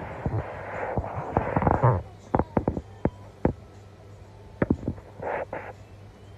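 Rustling, then a run of sharp light slaps about halfway through: a toddler's hands patting his bare legs and shorts as he sits on a woven mat. Two brief rustles come near the end.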